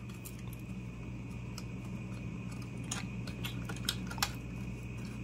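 Light clicks and taps of hands handling a disassembled oscilloscope's circuit boards and metal chassis, a handful of them about three to four seconds in, over a steady low hum.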